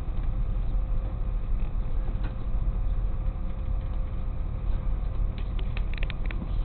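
Tow truck's engine and drivetrain running at low speed with a steady low rumble while it tows a car. A few short light rattles come near the end.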